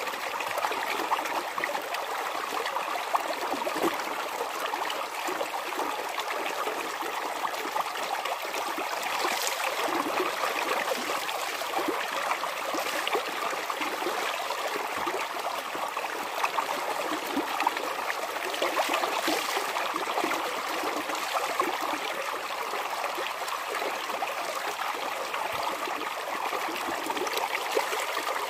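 Steady running water, with splashing and dripping from clothes being hand-washed and wrung out over a bucket; a couple of louder splashes stand out.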